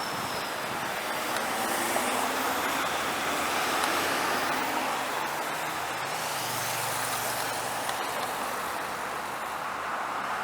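Road traffic: a heavy vehicle driving by, with steady engine and tyre noise.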